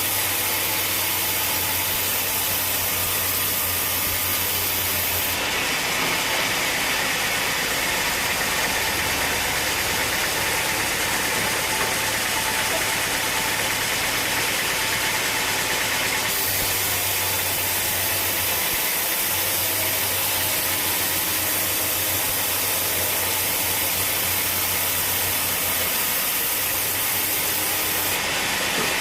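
Sawmill machinery running steadily, an engine hum under a constant hiss. Its tone shifts about five seconds in, again a little past halfway, and near the end.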